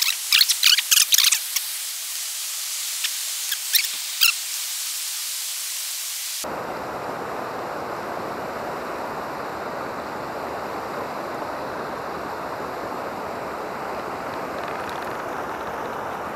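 Water rushing over a small rocky cascade in a stream. For the first six seconds it is a thin, bright hiss broken by a few sharp splashing crackles; about six seconds in it becomes a fuller, steady rushing.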